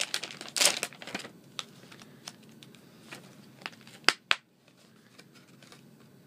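Plastic packaging of a bag of soft-plastic Rage Tail Rage Craw crawfish baits crinkling as it is handled and opened, with scattered light clicks and two sharp snaps about four seconds in.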